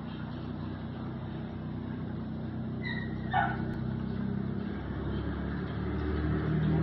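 Low, steady engine hum of a vehicle, growing gradually louder, with a brief higher-pitched sound a little over three seconds in.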